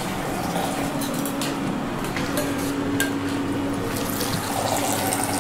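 A cocktail being thrown: a long stream of liquid pours from a metal shaker tin held high and splashes into a second metal tin held low, back and forth.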